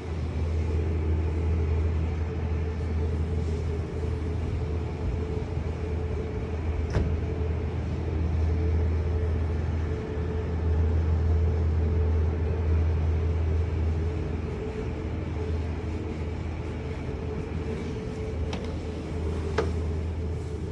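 Steady low rumble with a constant hum over it, the urban background drone of traffic and building machinery, with a few light clicks, two of them near the end.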